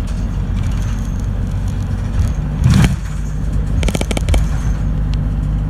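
Route bus running, heard from inside the cabin: a steady low engine and road rumble. There is a short louder rushing noise near the middle, then a quick run of rattling clicks about four seconds in.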